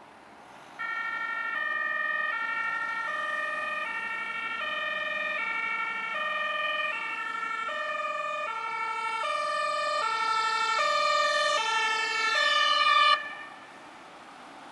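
Ambulance's electro-pneumatic two-tone horn (German Martinshorn) sounding, switching back and forth between two notes about every three-quarters of a second. It grows louder as the ambulance approaches, then stops suddenly about thirteen seconds in.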